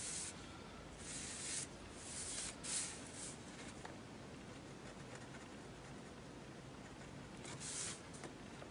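Pen scratching on sketchpad paper in short, quick strokes: a burst at the start, several in the first three seconds, a pause, then another near the end.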